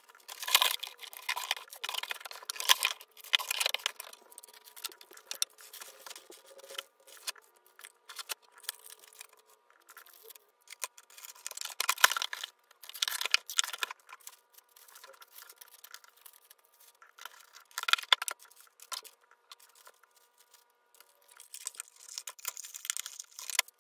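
Cardboard shipping boxes and plastic-wrapped items being handled while packing orders: irregular rustling, crinkling and light knocks, with the loudest bursts about a second in, around twelve seconds and around eighteen seconds.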